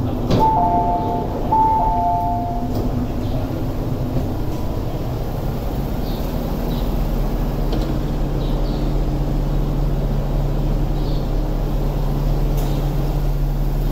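Electronic door chime of an MTR R-train, two-tone beeps sounding twice in quick succession as the doors open. Under it is the steady rumble and hum of the train standing at the platform, with the hum growing more prominent in the second half.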